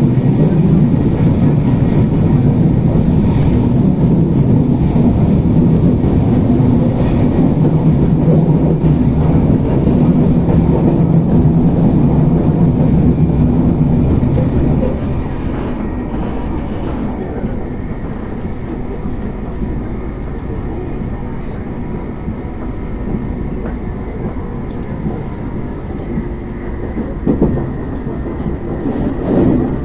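RER B suburban train running between stations: the traction motors give a steady low hum with a high whine, a traction noise described as strange. About halfway through the hum and whine cut out and the level drops, leaving quieter wheel and rolling noise as the train coasts.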